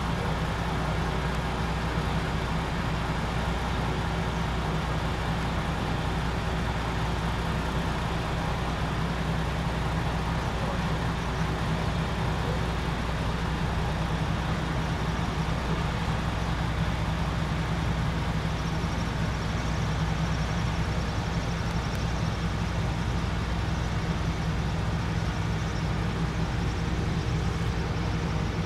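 Steady engine drone over a low rumble, level and pitch unchanging throughout, with faint steady tones above it.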